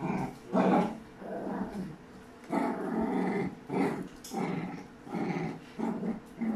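Dogs growling in repeated short bursts while play-fighting.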